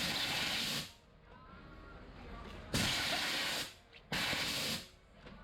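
Short blasts of compressed air hissing, three in a row about a second each with brief gaps between; the first is already under way at the start.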